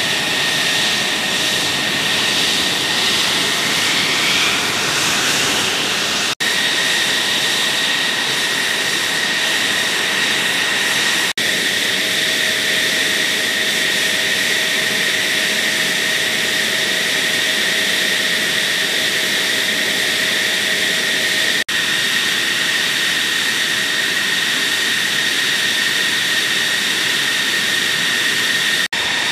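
F-16 Fighting Falcon jet engine running steadily on the ground: a loud, even roar with a constant high-pitched whine. A few momentary dropouts break it.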